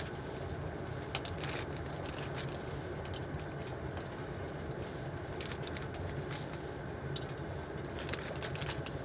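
Scattered light clicks and plastic crinkling as metal tongs lift honey hotteok out of a plastic bag and set them on a griddle pan, over a steady low rush.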